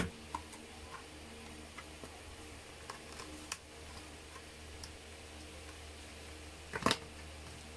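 Fingers handling a plastic ice cream tub lid give a few light clicks and taps, with a louder cluster of clicks near the end, over a low steady hum.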